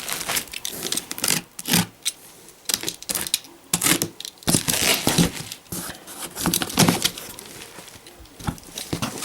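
Cardboard box and its packing being handled and pulled open: irregular rustles, scrapes and knocks.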